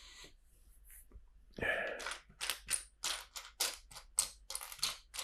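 Plastic LEGO bricks being handled: a louder rustle-clatter about one and a half seconds in, then a run of short plastic clicks and rattles about three a second.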